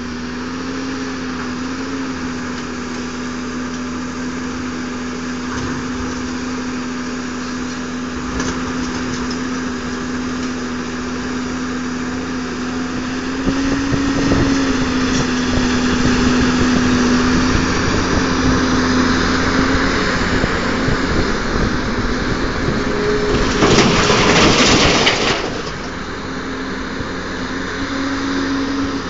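Caterpillar 330B hydraulic excavator's diesel engine running steadily, louder through the middle, with a short loud rushing noise a few seconds before the end.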